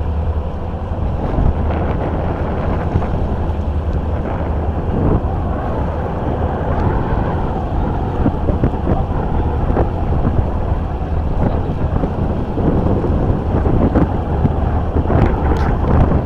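Small boat under way in a gusty wind: wind buffets the microphone over a steady low rumble and the rush of water, with occasional knocks.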